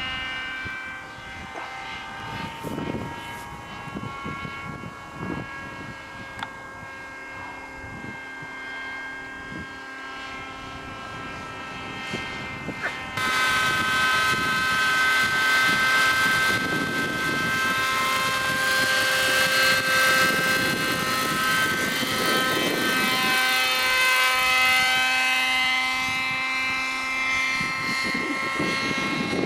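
Model helicopter's OS 37 two-stroke glow engine and rotors running in flight, a high, steady buzz. It gets much louder suddenly about thirteen seconds in, and its pitch rises and falls as the helicopter manoeuvres.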